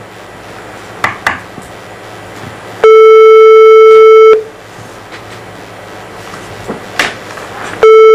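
Telephone ringback tone of a transferred call ringing through. The French-style tone of about 440 Hz sounds for about a second and a half, once about three seconds in and again near the end. Between the rings there is faint line hiss and a few soft clicks.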